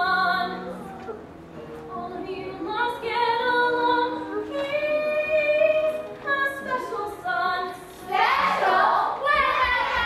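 A young chorus singing a musical-theatre number on stage, holding long sung notes; the singing grows louder and fuller from about eight seconds in.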